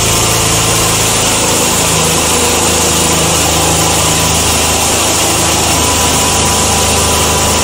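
Motor and alternator set running steadily with an even whirr and hum. The alternator is driven by an electric motor as its prime mover. Its low hum shifts slightly about two seconds in.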